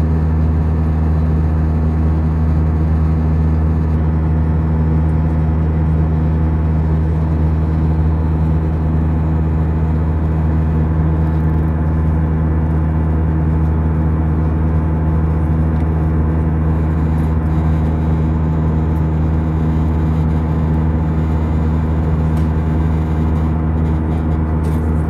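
Airbus A320 cabin noise in cruise from a window seat beside the engine: a steady low drone with several constant hum tones under an even rushing noise, unchanging throughout.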